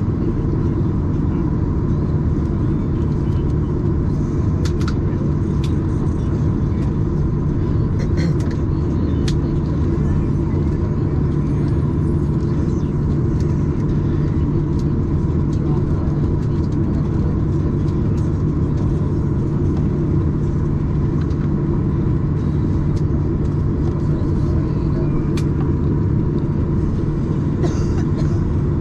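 Steady cabin drone inside a Boeing 737-800 airliner: the even rumble of its engines and air, with a constant low hum and a fainter steady whine, and a few faint clicks.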